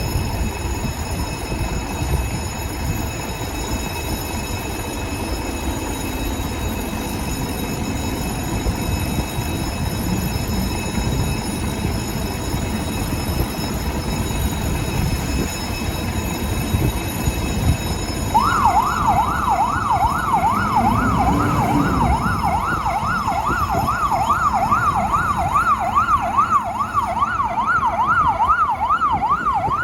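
Fire-service hydraulic platform truck with its engine rumbling. About two-thirds of the way through, its siren starts: a fast yelp sweeping up and down a few times a second.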